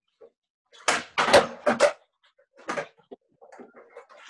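Skateboard on a hard tiled floor: a cluster of sharp clacks and knocks about a second in, as the tail snaps and the deck and wheels land, then another knock a little later and some lighter rattling of the board.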